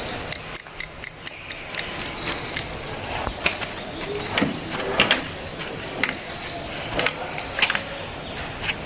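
Metal parts of a lathe being worked by hand, giving a quick run of sharp clicks that thins out into scattered clicks and knocks.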